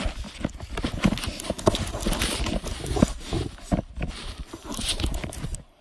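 A phone being handled and set down on a fabric cushion: irregular rustling and soft knocks that stop just before the end.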